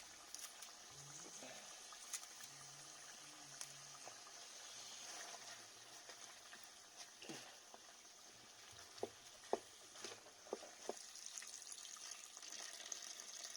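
Faint liquid sounds of duck curry cooking in a pot, a steady low sizzle and bubble, with a few light clicks about nine to eleven seconds in.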